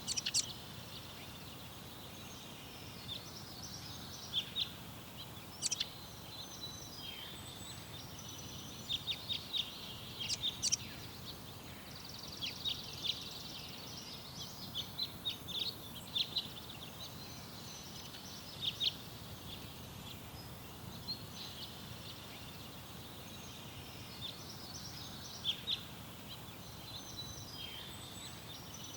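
Small songbirds chirping and singing in short, frequent high-pitched calls and trills over a steady background hiss.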